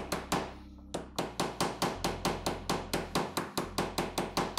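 Ball-peen hammer peening the cut end of a copper rivet over its burr through leather, in rapid even strikes about five a second with one short pause near the start. The work rests on a desk rather than an anvil or granite block.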